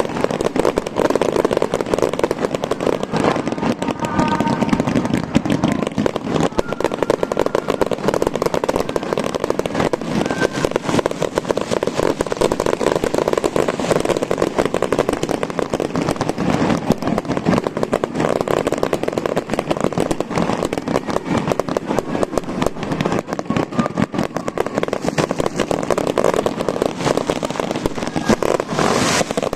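A fireworks finale barrage: shells bursting and crackling in a dense, unbroken run of rapid bangs.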